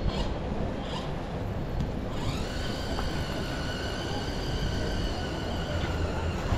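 Outdoor street ambience with wind rumbling on the microphone and a few light footsteps near the start. About two seconds in, a steady high-pitched tone with overtones comes in with a short rise and holds for about four seconds.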